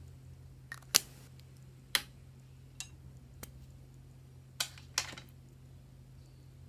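A handful of sharp clicks and snaps at irregular intervals, the loudest about a second in and two close together near the end, over a steady low hum.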